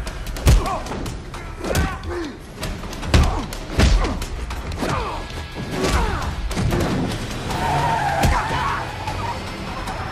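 Action-film fight soundtrack: a string of sharp punch and body-hit impacts, loudest about half a second in and about three seconds in, over score music with vehicle engine and skidding sounds beneath.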